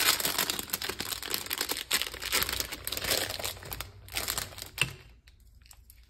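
Plastic packaging crinkling and rustling as it is handled and pulled open, with a few sharper crackles; it dies down about five seconds in.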